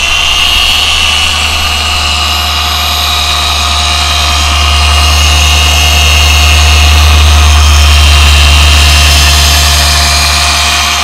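Dual-action orbital polisher running steadily, buffing a plastic headlight lens with a polishing pad and compound. Its motor holds a steady pitch, growing louder in the middle and easing off near the end.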